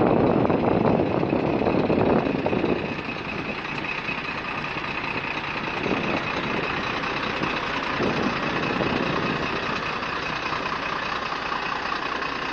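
Heavy truck's diesel engine idling under wind noise on the microphone. The wind gusts hardest in the first two and a half seconds, then settles to a steady rush.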